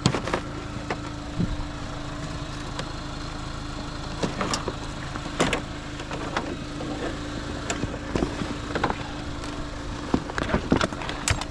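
Pickup truck engine idling steadily, with scattered clicks and knocks over it.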